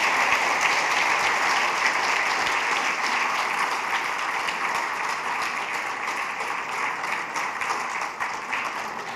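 Audience applauding: a roomful of people clapping, dying away over the last few seconds.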